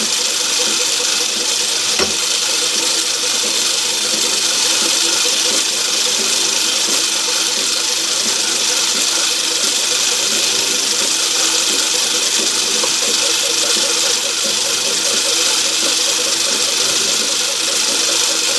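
Myford ML7 lathe running steadily in forward under power, its drive and gear train making a steady whir with a fast, even rattle, during a light 2 thou screwcutting pass on a metric thread. A short click comes about two seconds in.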